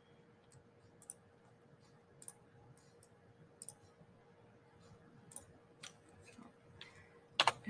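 Faint, scattered clicks of a computer mouse button, a few louder clicks near the end, over a faint steady hum.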